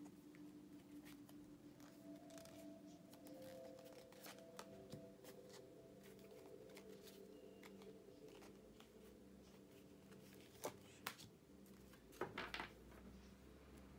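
Tarot cards being handled and picked from the decks: soft scattered card clicks and slides, with a few sharper snaps near the end, over faint sustained background music.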